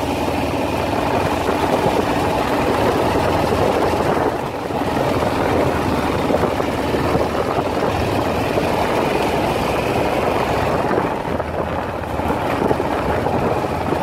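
Yamaha XT660's single-cylinder engine running steadily as the motorcycle is ridden along a dirt road, mixed with a rush of wind and tyre noise.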